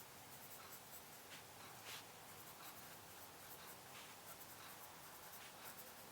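Faint, irregular light taps and short scratches of someone working at a desk. The loudest stroke comes about two seconds in.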